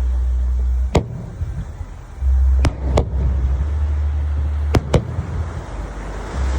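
Fireworks shells bursting in sharp bangs, five of them, the later four in two quick pairs, over a steady low rumble.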